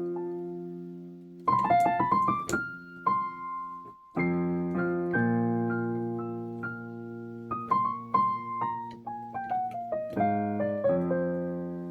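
Solo piano playing: a held chord dies away, a quick run of notes follows, then a short pause about four seconds in. A new chord is struck and held while a melody line steps downward over it, and another chord comes in near the end.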